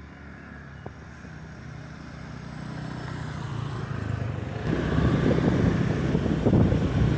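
Motor scooter engines on a street: a scooter's engine faint and drawing nearer at first, then from about five seconds in a much louder, rough low rumble of engine and road noise.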